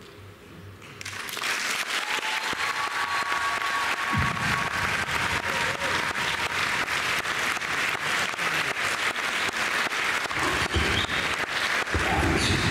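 Audience applauding, starting about a second in and continuing as a dense, steady clapping.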